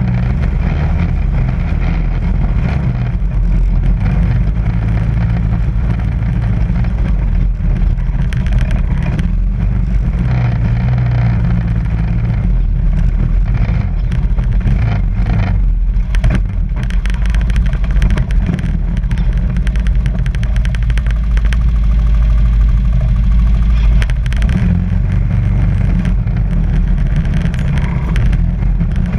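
ATV engine running as the quad rides over sandstone slickrock, heard close up from a camera on the machine, with scattered knocks and rattles.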